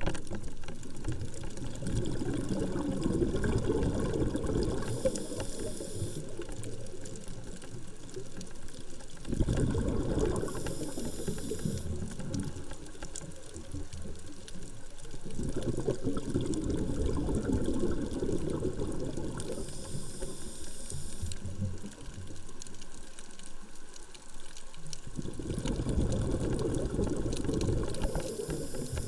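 A scuba diver breathing underwater through a regulator: four slow breath cycles, each a few seconds of bubbling rumble with a short high hiss near its end.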